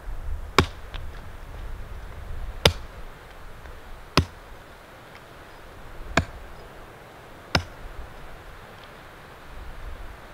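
Wood being chopped with a hand tool on the ground: five sharp, separate blows, one every second and a half to two seconds.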